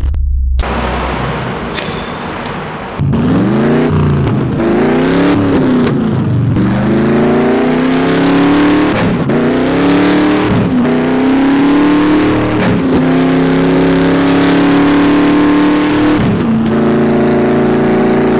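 Racing car engine accelerating hard up through the gears. Its pitch climbs and drops back at each upshift, about six times, after a noisy whoosh in the first few seconds.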